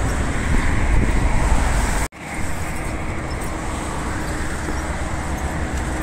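Road traffic noise, cut off abruptly about two seconds in and then continuing as a steadier, slightly quieter traffic noise with a faint steady hum.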